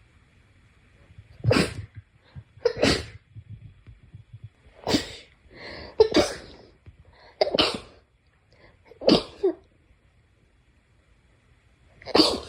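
A person sneezing, a run of about seven sharp sneezes one after another, each a second or two apart.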